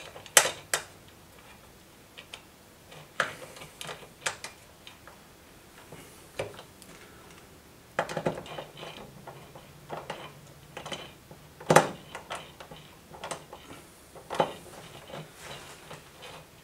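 Irregular small clicks, taps and scrapes of mounting hardware (screws, washers, spacers and a metal bracket) being handled and a screw being turned in by hand with a Phillips screwdriver, with a few sharper knocks, the loudest about twelve seconds in.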